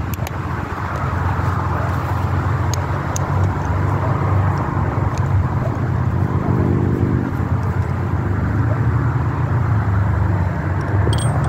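Steady low rumble like a motor vehicle running, with a few faint sharp clicks scattered through it.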